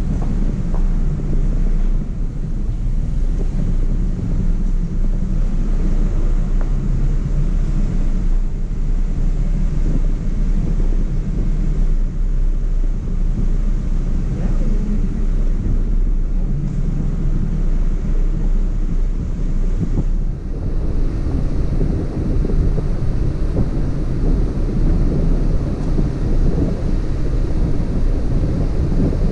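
Hummer H2's V8 engine running steadily as the truck crawls along a dirt trail, with wind buffeting the microphone.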